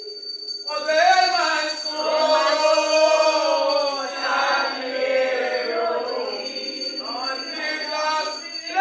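Church congregation singing a spiritual hymn together, starting up after a short pause, the voices rising and falling in long sung phrases.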